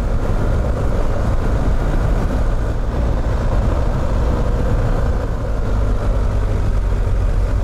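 BMW R1250 GS boxer-twin adventure motorcycle riding a gravel track at a steady speed. Its engine and tyre noise sit under a steady, deep wind rumble on the bike-mounted camera's microphone.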